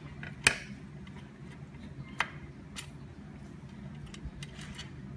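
Screwdriver and small M3 screw on the 3D printer's LCD control box cover giving a few sharp clicks and ticks as the screw is undone, the loudest about half a second in and two more around two and three seconds, over a low steady hum.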